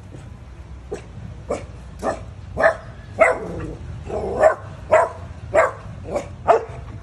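Dog barking in a string of short, sharp barks about every half second, getting louder partway through.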